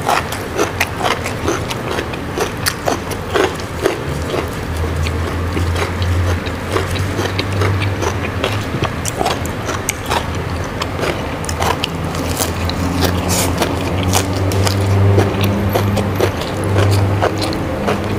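Close-up chewing and crunching of a mouthful of food, many short crisp clicks. A low steady drone comes in underneath about five seconds in and grows near the end.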